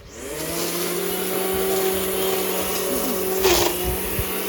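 A motor-driven machine starts up and quickly settles into a steady, even whine with a rushing-air hiss. About three and a half seconds in there is a brief scraping whoosh.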